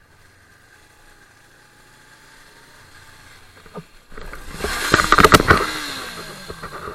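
Suzuki GS500 motorcycle crashing into a van on a wet road: about four seconds in comes a loud burst of impacts and scraping lasting around two seconds, with a falling tone as it dies down.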